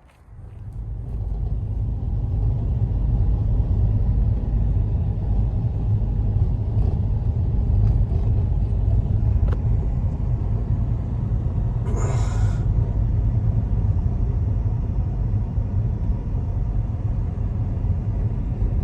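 A steady low rumble that swells up over the first two seconds and then holds, with a brief hiss about twelve seconds in.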